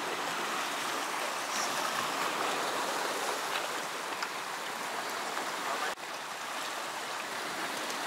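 Small waves washing and swirling over a rocky sea shore: a steady rushing noise, with a brief dip about six seconds in.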